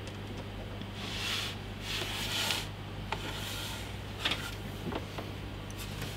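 Rubbing and rustling as a person shifts against a desk, in two soft brushes about one and two seconds in, followed by a few light taps, over a steady low hum.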